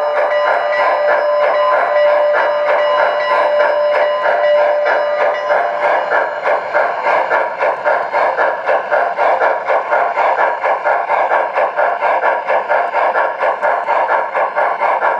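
MTH Premier Great Northern S-2 4-8-4 O-gauge model steam locomotive's onboard sound system running: a steady rhythmic chuffing, with a long held whistle tone for about the first five seconds.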